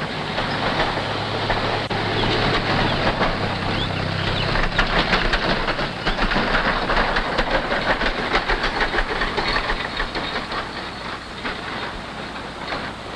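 Ford farm tractor running along, a fast mechanical clatter over a low engine hum.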